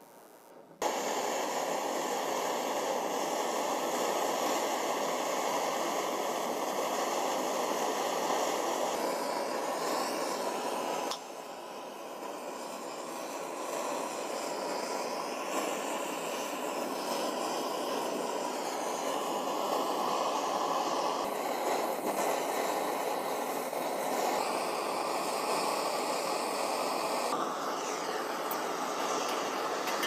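LPG gas torch and gas burner flames running, a steady rushing noise, firing from above and below onto a plate-covered steel bowl to burn the plastic off tactile switches. The noise drops about eleven seconds in, then slowly builds back up.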